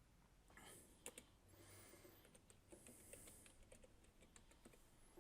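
Faint computer keyboard typing: scattered, irregular keystrokes while a spreadsheet formula is entered.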